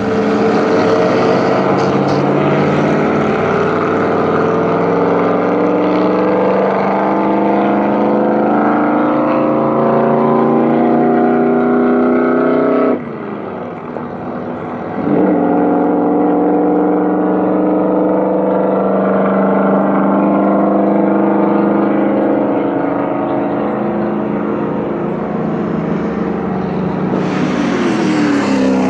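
Racing car engines running hard, heard in separate clips. A steady pitched engine note lasts about 13 seconds and cuts off suddenly, a second engine comes in about two seconds later, and a noisier pass begins abruptly near the end.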